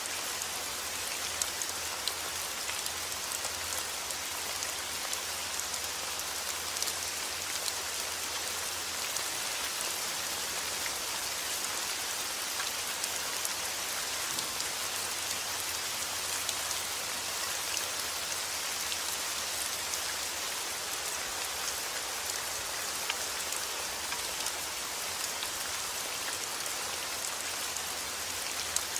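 Steady heavy rain falling outdoors, an even hiss with scattered sharp drop ticks.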